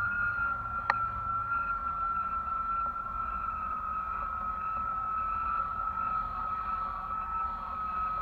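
Steady high whistling whine with faint overtones, sinking very slightly in pitch, over a low wind rumble on a kite-borne camera rig. A single sharp click about a second in.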